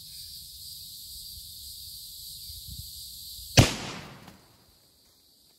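A single shot from a Mossberg Patriot bolt-action rifle firing a full metal jacket round about three and a half seconds in, loud and sharp, with an echo dying away over about half a second. Before it there is a steady high insect buzz.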